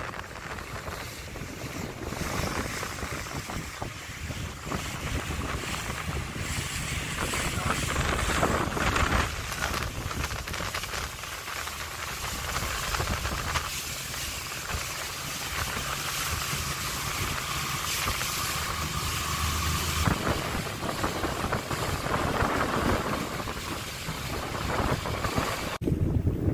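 A motorboat running at sea with heavy wind noise on the microphone and waves. A steady low engine hum sits under the noise.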